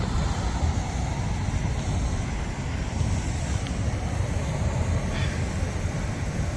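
A steady low rumble with no clear pigeon calls.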